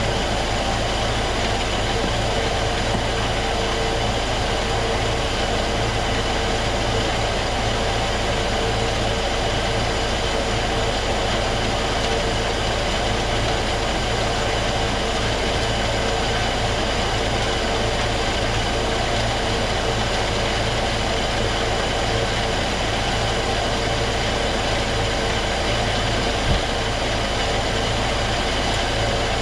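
Grain auger running steadily, driven by a motor on its worn, loose belt, carrying grain up from the silo: a continuous mechanical drone. A single knock sounds about 26 seconds in.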